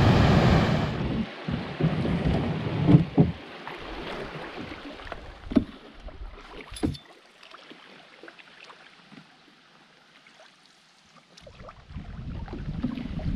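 Canoe paddling on a river: a loud rush of water and wind noise that drops away after about a second, then a few scattered sharp knocks and splashes. A quieter stretch follows before the rush builds again near the end.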